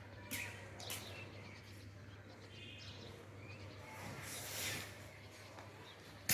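Outdoor ambience with faint bird chirps, a few light knocks and a steady low hum.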